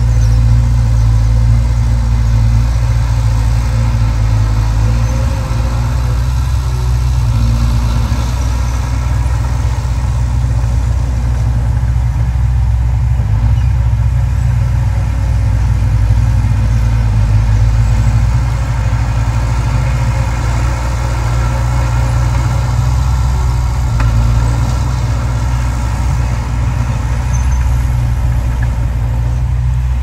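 Small crawler bulldozer's diesel engine running steadily as it pushes soil with its blade, a low, even drone with no break.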